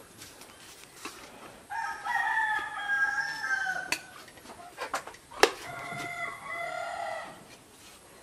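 A rooster crowing twice, each crow about two seconds long. A few sharp clicks fall between and around the crows, the loudest just before the second crow.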